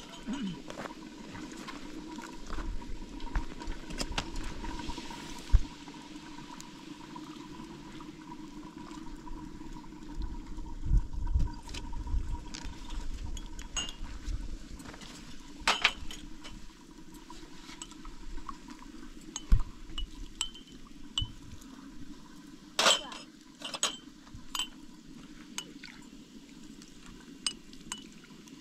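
Small glass tea glasses clinking as they are set out on a metal tray, in scattered sharp clinks with the loudest cluster about two-thirds of the way in. A few dull low thumps come a little before the middle.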